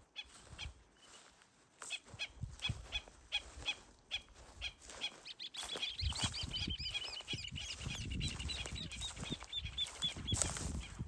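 Birds calling: short sharp calls repeated about three times a second, then from about halfway in a fast run of rising-and-falling chattering notes, with low thuds of footsteps underneath.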